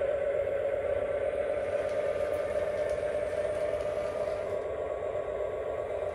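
Two Lionel O-gauge diesel locomotives running slowly on three-rail track, giving a steady mechanical running noise of motors and wheels as they pull off together.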